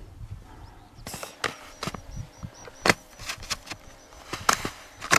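Alpine skis and ski boots knocking and scraping on slushy summer snow as a skier gets set. A run of sharp, irregular knocks starts about a second in.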